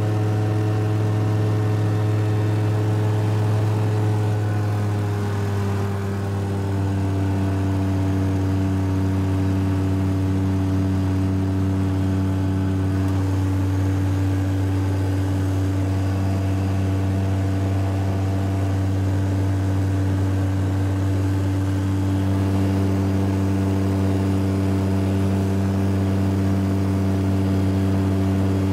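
Propeller engine of a small high-wing light aircraft droning steadily in cruise flight, heard from inside the cabin. Its pitch drops slightly about five seconds in, then holds steady.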